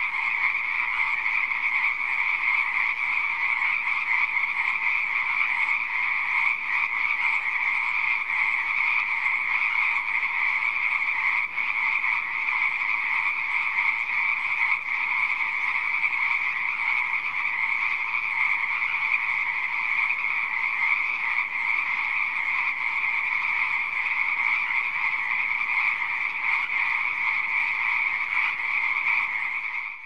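A dense chorus of pond frogs croaking, continuous and steady without pauses, dropping away at the very end.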